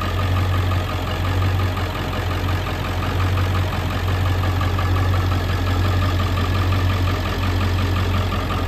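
Ford service-body truck's engine idling steadily: a constant low hum with a fast, even ticking over it.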